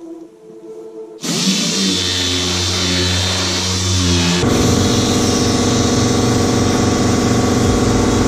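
Air-powered orbital sander running steadily as it sands primed car bodywork, starting suddenly about a second in and getting louder partway through.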